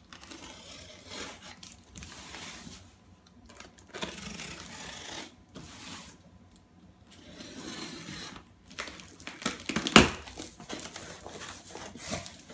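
Packing tape and plastic wrap being cut and torn off a cardboard box, in several long ripping, rustling stretches, then cardboard flaps being pulled open with crinkling. A single sharp knock about ten seconds in is the loudest sound.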